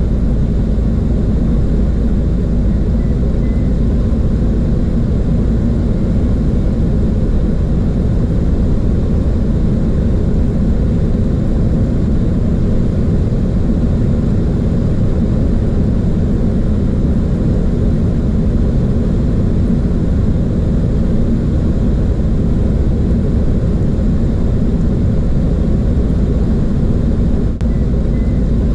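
Steady cockpit noise of a Boeing 737 airliner: an even, low rush of airflow and engines.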